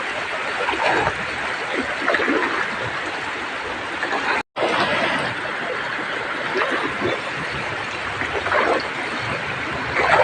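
Heavy rain pouring steadily, with scattered splashes, cut off for a split second near the middle.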